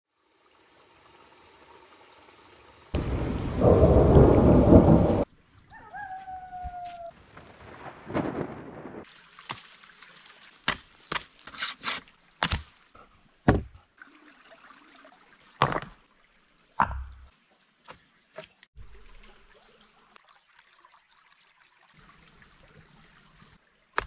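Rain hiss, then a loud, deep thunderclap about three seconds in lasting about two seconds. Later comes a string of separate sharp knocks and clacks.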